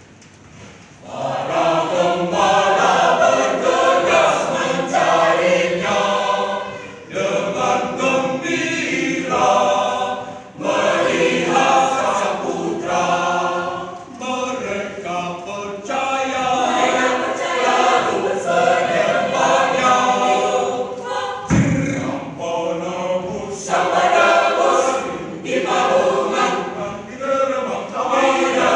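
Mixed-voice parish choir singing in harmony. The singing comes in about a second in and breaks briefly between phrases.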